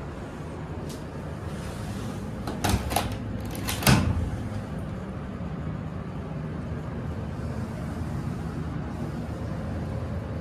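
Steady low hum inside a Schindler 300A elevator car, with a short cluster of clicks about two and a half seconds in and one sharper, louder click about a second later.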